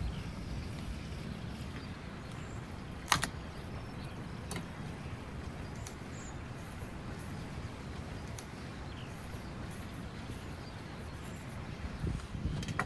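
A knife knocking on a wooden cutting board as raw beef liver is cut: one sharp knock about three seconds in and a few fainter clicks later, over a steady low wind rumble.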